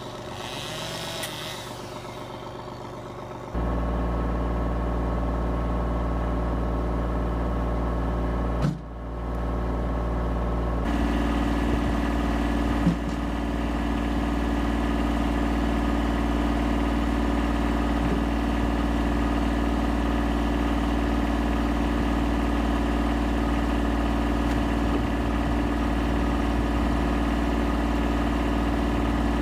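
Kubota tractor's diesel engine idling steadily, coming in abruptly about three and a half seconds in, with a brief dip near nine seconds and a sharp knock near thirteen seconds.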